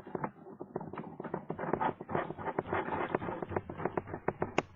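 Lock pick working the pins of a Master Lock No. 575 pin-tumbler padlock under tension: a rapid, irregular run of small clicks and scraping, with one sharper click near the end.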